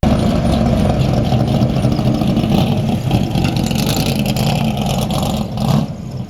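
Racing car engines running loudly and steadily, easing off near the end.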